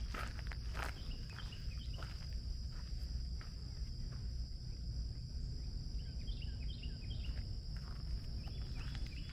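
Steady high-pitched insect drone throughout, with birds chirping twice (about a second in and again around six seconds in). Footsteps crunch on a dirt trail near the start and again near the end, over a steady low rumble.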